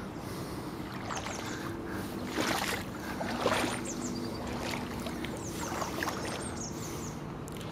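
Floodwater sloshing and splashing, with a couple of louder surges about two and a half and three and a half seconds in, and small birds chirping faintly throughout.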